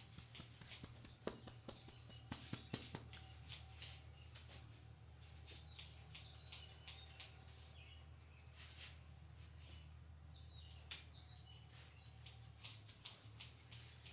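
Faint hand sounds of a head massage: a quick run of light taps and clicks on the scalp and hair, then sparse faint high chirps with a single sharp click near the end, over a low steady hum.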